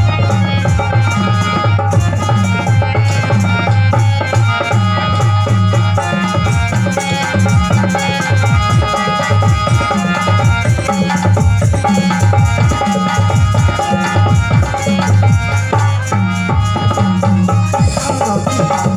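Instrumental passage of a live folk song: an electronic keyboard plays a melody over a steady, even beat on a barrel hand drum.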